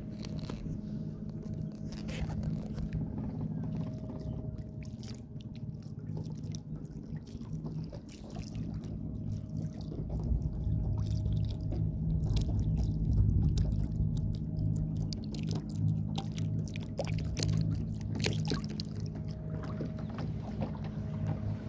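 A donut boat's motor running with a steady low hum as the boat moves across the water, with short splashes of water against the hull; the motor gets louder about halfway through.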